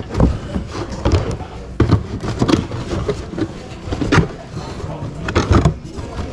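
Cardboard product boxes being handled and shuffled close to the microphone, making irregular knocks, scuffs and thumps, with indistinct voices in the background.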